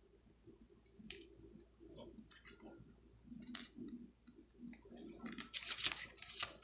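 Booklet pages being turned by hand: faint scattered paper rustles and soft clicks, becoming a quicker, louder flurry of page flips near the end.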